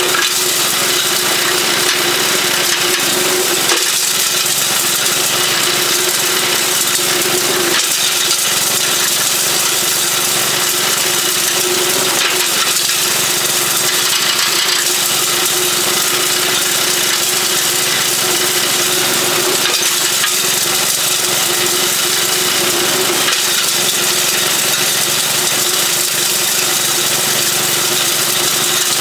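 Homemade beer-bottle crusher driven by a 3.5-horsepower engine, the engine running steadily while its blade smashes glass bottles, with clinking of broken glass and a few sharp knocks.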